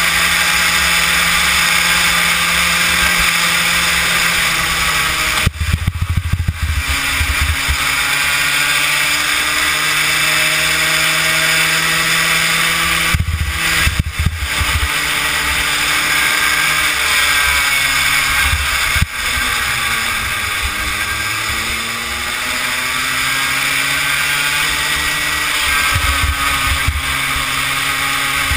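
Kid kart's small engine running hard, heard close from a camera mounted on the kart; its pitch drops and climbs back several times as the throttle comes off and on through the corners, with low buffeting rumble at some of the dips.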